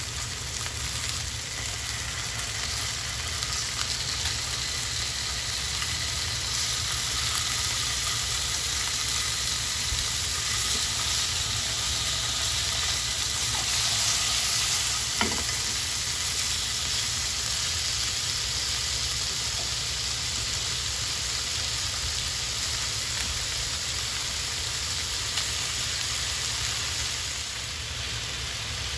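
Chicken thigh pieces sizzling in oil in a frying pan, a steady hiss. There is a single knock on the pan about halfway through.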